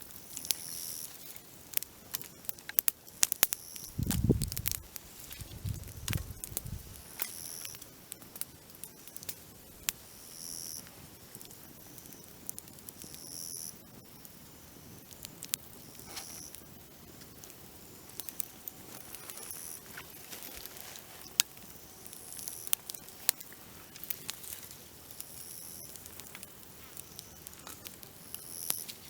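Dry twigs crackling and snapping in a campfire, with grasshoppers chirring in short bursts about every three seconds. There are two low thumps about four and six seconds in.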